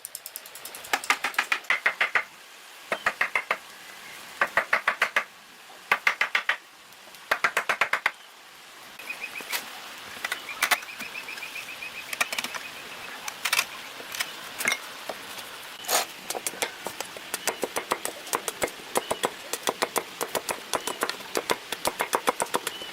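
Bursts of rapid sharp knocking, each about a second long, five times, then scattered single knocks, with a faint high steady tone in the middle.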